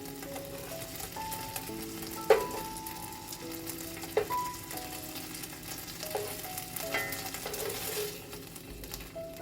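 Chicken fillets sizzling in a frying pan, with a few sharp knocks of a utensil against the pan about two, four and seven seconds in.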